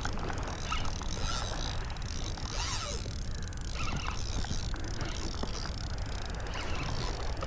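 Spinning reel being cranked steadily to bring in a hooked striped bass, with a few faint clicks over a low steady rumble.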